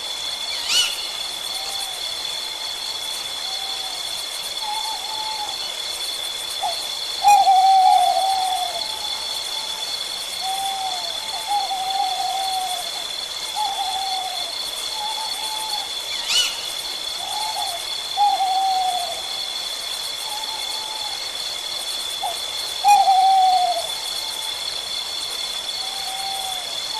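Owl hooting: short calls that slur downward in pitch, repeated every second or two, a few of them louder than the rest, over a steady high-pitched hum. A few sharp clicks stand out.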